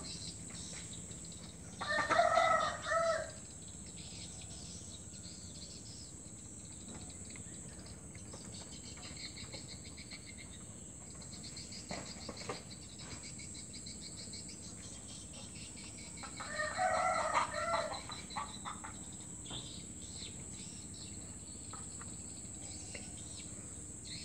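Village rooster (ayam kampung) crowing twice, each crow lasting about a second and a half, the second coming some fourteen seconds after the first. Underneath runs a steady high-pitched drone of insects.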